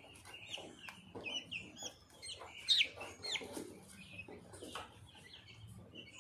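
Two-week-old chicks peeping: a steady stream of short, high chirps, some sliding down in pitch, busiest a little before the middle.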